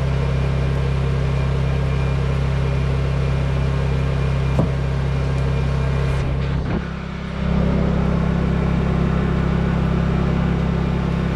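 Honda portable generator's small engine running steadily under load at full throttle while charging an electric car. The sound briefly drops in level about two-thirds of the way through, then comes back.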